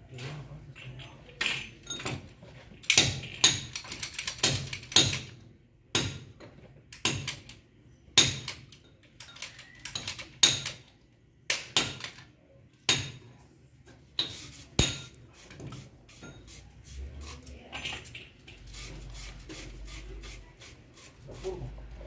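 Hand tools knocking and clinking sharply and irregularly, about one stroke a second, as a water pump and its fittings are worked on. Near the end the knocks give way to smaller ticks over a low rumble.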